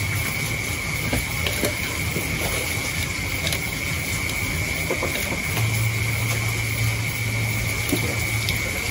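Steady rushing, water-like noise with a constant high-pitched drone and a low hum that swells about halfway through. Over it come faint rustling and small clicks as hands pick shrimp and fish out of a pile of wet mangrove leaves.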